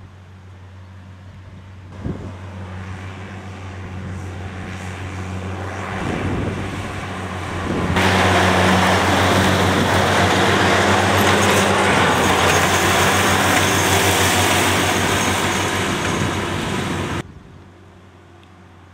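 Case IH CVX 1195 tractor engine running under load with its disc mowers cutting grass, a steady engine hum under a rushing noise. It grows louder as the tractor approaches and is loudest as it passes close by, then drops suddenly to a distant steady drone near the end.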